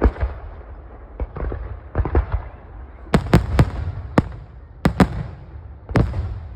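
Fireworks going off: about a dozen sharp, irregular bangs over a steady low rumble and crackle, the sharpest cluster of reports coming a few seconds in.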